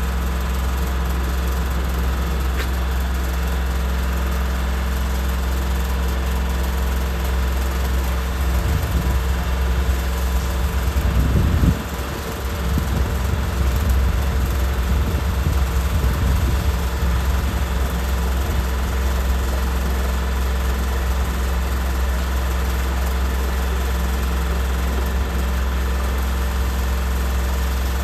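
An engine running steadily at idle, a low drone throughout, with a brief louder rumble about twelve seconds in.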